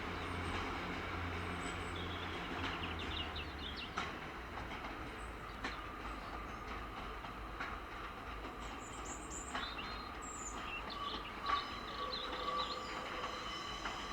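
GWR Class 143 Pacer diesel train running on the track, with a steady low hum that eases about four seconds in. A few sharp clicks come from the wheels over rail joints.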